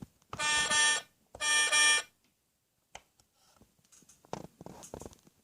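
Two electronic buzzing beeps from a toy, each a little under a second and steady in pitch, followed by a few faint clicks and taps of the toy being handled.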